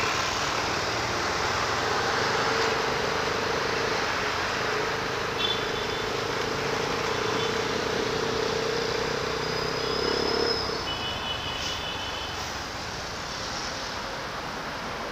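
Motorcycle running at low speed on the road, its engine under a rush of wind and road noise, with a steady hum that stops about eleven seconds in. A few short high beeps come and go.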